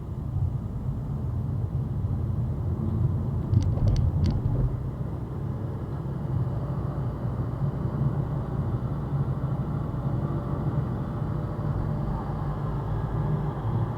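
Steady low rumble of road traffic, with three short high clicks about four seconds in.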